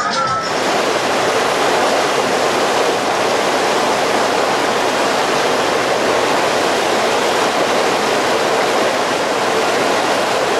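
Steady, loud rushing and churning of sea water in a moving boat's foaming wake.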